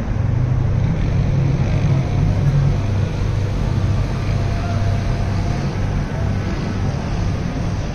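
Steady low rumble of engines from road traffic and boats, with no distinct events standing out.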